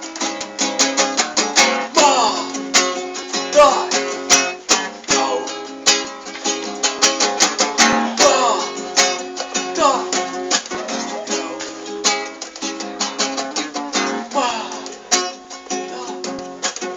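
Instrumental passage of a song: a guitar strummed in a steady rhythm, with a melody line over it.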